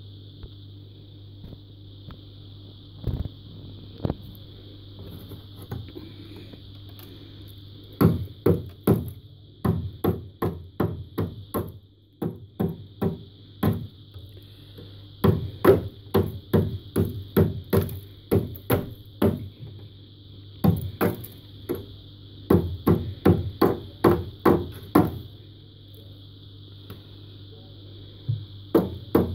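Freezer frost being crunched between the teeth: runs of crisp crunches, about two to three a second, with pauses between mouthfuls.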